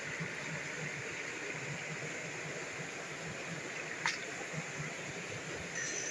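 Stream water rushing steadily over rocks, with a single sharp click about four seconds in.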